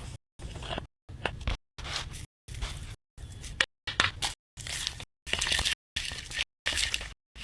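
Crunchy slime being squeezed and pressed by hand, giving crackling, squishing sounds. It comes in short chopped pieces about every half second, each cut off by a brief dead silence.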